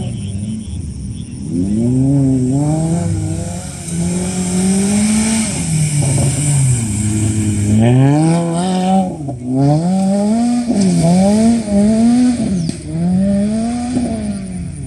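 Rally car engine revving hard on a dirt stage, its pitch climbing and dropping back again and again as the driver shifts and lifts through the corners. The car comes close and then pulls away up the track.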